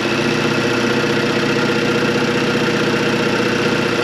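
Suzuki Cappuccino's F6A turbocharged three-cylinder engine idling steadily, breathing through a Greddy charge pipe and Zero1000 intake.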